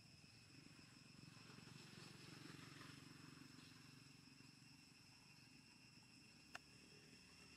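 Near silence with a faint, steady high drone of insects. A faint low rumble swells and fades in the middle, and there is one sharp click near the end.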